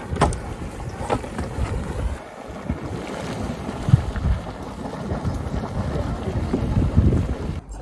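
Wind buffeting the microphone outdoors: a gusty low rumble with a few knocks in the first two seconds, cutting off suddenly near the end.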